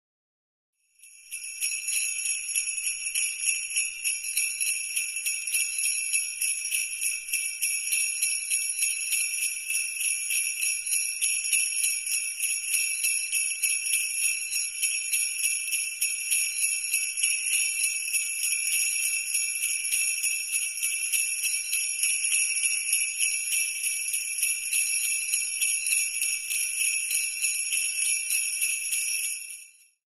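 Aledo handheld sleigh bells, a cluster of small metal jingle bells on a handle, shaken continuously in a quick, steady rhythm. They start about a second in and stop just before the end.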